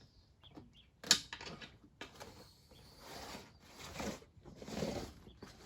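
Rubber inner tube being pulled out of a motorcycle tyre: a sharp knock about a second in, then a few seconds of rubber rubbing and scuffing against the tyre and rim.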